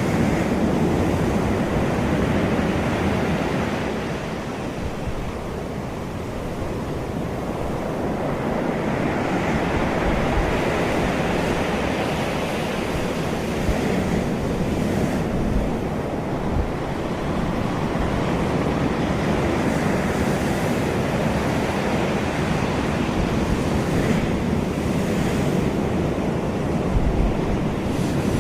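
Sea surf breaking and washing on a beach, a steady rush that swells and eases over several seconds, with wind buffeting the microphone.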